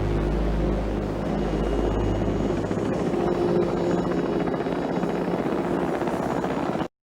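Helicopter flying, a steady rotor and engine sound that cuts off suddenly near the end.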